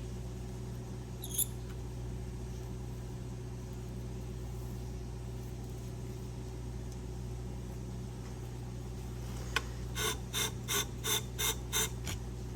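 Steady electric hum of a scissor-sharpening machine's motor running. Near the end comes a quick run of about eight short scraping strokes, about three a second.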